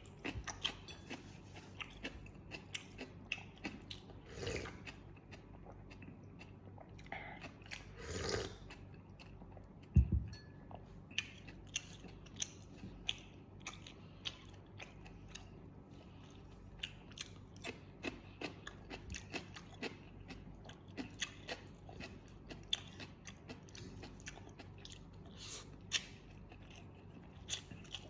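Close-up eating sounds of fried catfish with sambal: chewing and many short crisp crunches. A louder low thump about ten seconds in.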